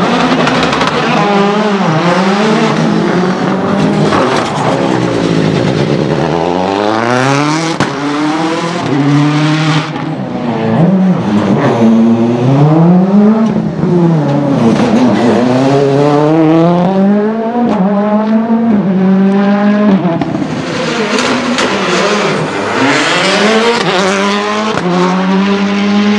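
Turbocharged World Rally Car engines revving hard, the pitch climbing and dropping over and over as the cars shift gear and lift off through the tyre chicanes.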